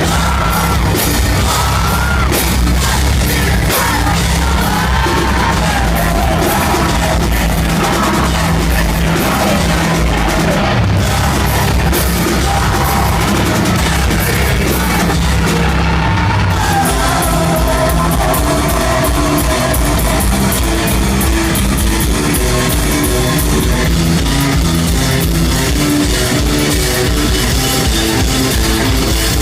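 Live rock band playing loud, with guitars, drums and a sung and yelled lead vocal; the vocal lines are mostly in the first half.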